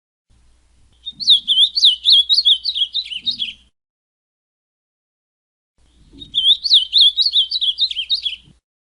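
Ultramarine grosbeak (azulão) singing two matching phrases of quick, rising and falling warbled notes, each about three seconds long, with a pause of about two seconds between them.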